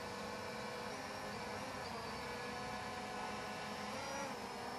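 LMRC LM12 mini quadcopter hovering, its small brushless motors and propellers giving a quiet, steady buzzing hum of several pitches that shift slightly near the end.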